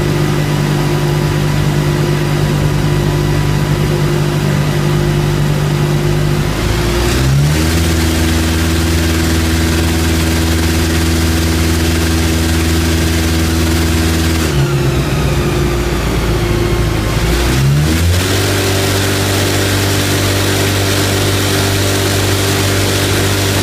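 MV Agusta Brutale 1090RR's inline-four engine running on a chassis dyno with the exhaust dB killer fitted, held at steady engine speeds. Its pitch steps up about seven seconds in, drops back about halfway through, and steps up again a little later to hold.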